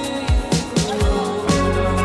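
Background music with a steady drum beat: kick drum and hi-hat under sustained keyboard chords.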